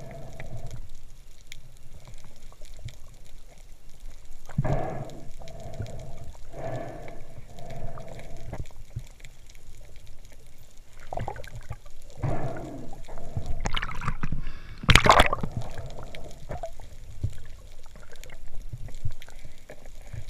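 Water gurgling and bubbling around an underwater camera, in repeated bursts a second or two apart, with a louder burst about fifteen seconds in.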